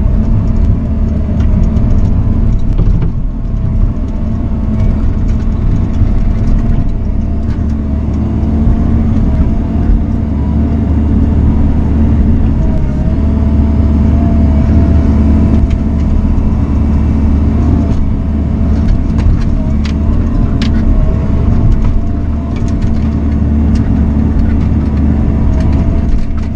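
Bobcat compact excavator's diesel engine running steadily under working load, heard from inside the cab, with a whine that dips and rises in pitch as the boom and bucket work. A few sharp knocks, mostly in the last third.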